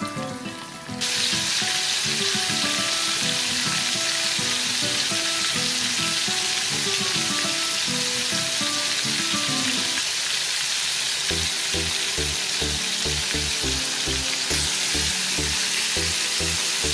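Three whole Indian mackerel deep-frying in a pan of hot oil, a steady loud sizzle that comes up suddenly about a second in. Background music plays under it and picks up a regular beat in the second half.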